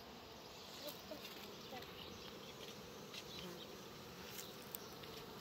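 Honeybees buzzing steadily around the entrance of a wooden hive, where a cluster of bees hangs from the landing board.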